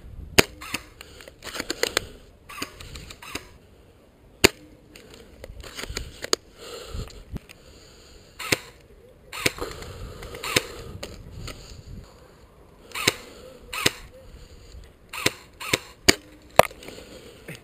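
Airsoft replicas firing, with a dozen or more sharp snapping shots at irregular intervals, some in quick succession.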